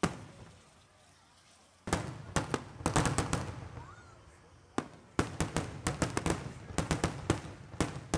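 Fireworks finale: aerial shells going off in rapid volleys, fired by remote at a pace too quick to light by hand. One sharp bang comes first, then dense rapid bangs start about two seconds in. They ease off, a single bang comes near the middle, and the rapid bangs resume.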